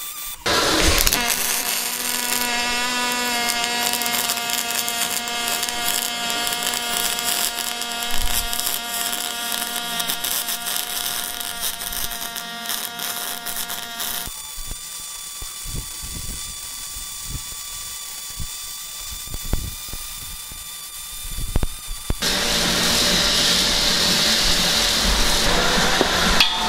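Metalworking in a pipe-welding shop. A steady buzzing tool or process with crackling runs for about fourteen seconds and stops abruptly. After a quieter stretch, a steady hissing starts near the end.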